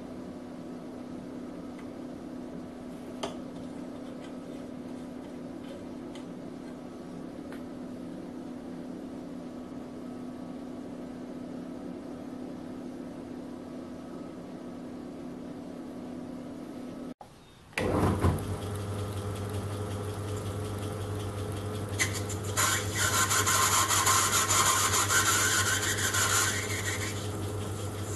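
Steady hum of an H160 oxy-hydrogen torch generator while a brass fitting is soldered. About 17 s in, a belt-driven vintage metal lathe starts up louder with a steady low hum, and from about 22 s a harsh scraping of the tool cutting metal runs for about five seconds.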